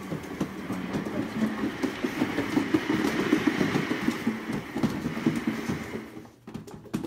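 Cat exercise wheel spinning under a running Maine Coon: a rolling rumble with rapid clattering from the wheel on its base rollers. It grows louder over the first few seconds, then fades away about six seconds in.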